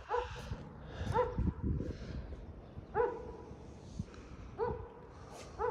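A dog barking about five times at irregular intervals, each bark short with a quick rise in pitch.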